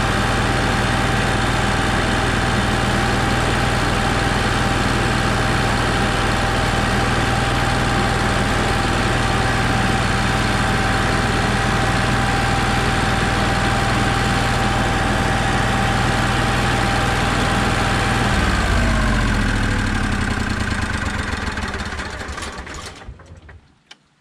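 Onan Marquis Gold 5500 RV generator running steadily after its oil change, then shut off about eighteen seconds in: the pitch sinks and it runs down over a few seconds to a stop.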